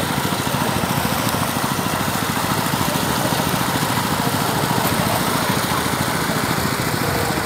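Engine of a farm machine running steadily, with a rapid, even pulsing throb.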